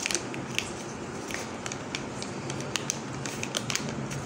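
Clear plastic parts bag crinkling and rustling in the hands, with irregular short crackles.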